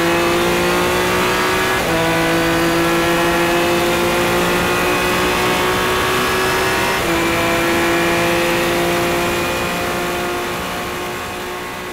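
Revolution A-1 500SC prototype race car's engine pulling hard at full throttle, heard from the cockpit. Its pitch climbs steadily and drops sharply at two upshifts, about two seconds in and about seven seconds in. The sound fades out near the end.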